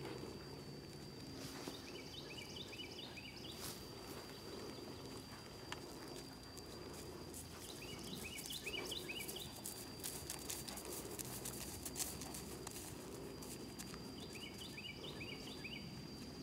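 A bird sings a short phrase of quick notes stepping down in pitch, three times about six seconds apart. Under it run wind rumble on the microphone and the faint hoofbeats of a horse trotting on grass.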